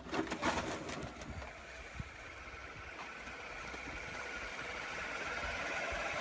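Motorbike clattering as it tips over and slides down concrete steps, then its engine running steadily, slowly getting louder.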